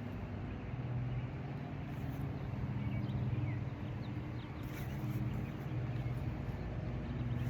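A steady low motor hum with a few faint, short high chirps over it.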